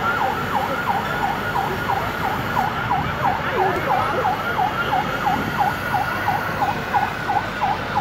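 An emergency-vehicle siren in a fast yelp, its pitch dipping and rising about three times a second, over steady background noise.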